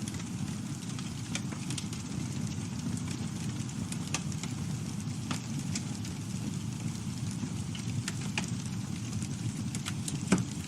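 Campfire burning: a steady low rumble with scattered sharp crackles from the burning wood, and one louder pop near the end.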